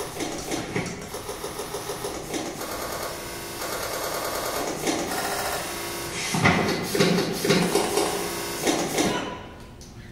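Amplified everyday objects and electronic sounds from a percussion piece: a dense mechanical texture of clicks, rattles and knocks, with fast regular rattling in the middle and louder knocks toward the end, cutting off suddenly about nine seconds in.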